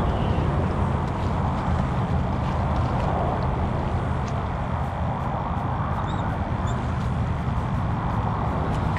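A steady, low rumbling noise that carries on evenly, with a few faint short chirps and ticks above it.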